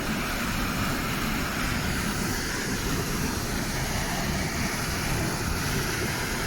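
Waterfall roaring steadily: a constant, even rush of falling water.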